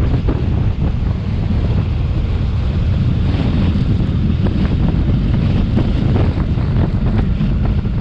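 Wind rushing over the microphone of a rider on a moving Suzuki Burgman 400 maxi-scooter: a loud, steady wind noise, heaviest low down, that covers the motorcycle's own sound.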